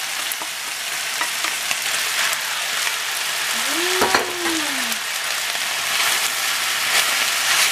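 Turkey and stir-fried vegetables sizzling in a hot frying pan as sauce is poured in and stirred with a wooden spatula, with small scraping clicks from the stirring. About four seconds in, a short tone rises and falls.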